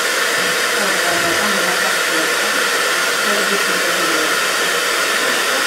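Hand-held hair dryer running steadily on the floor: a loud, even rush of air with a steady whine on top.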